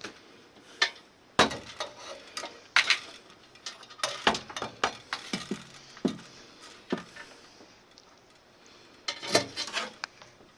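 Irregular metallic clinks, knocks and clatter of a gas water heater's burner and pilot assembly being handled and fitted back into the combustion chamber, with a quick flurry of clinks near the end.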